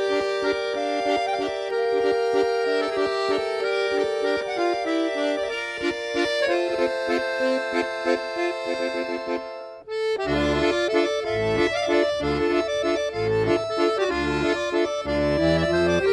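Instrumental music of held chords under a melody. Just before ten seconds in it briefly drops away, then comes back with low bass notes pulsing beneath.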